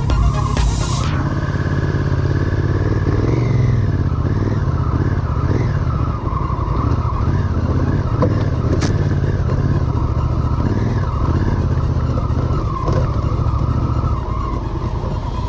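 Twin-cylinder adventure motorcycle engine running steadily while riding.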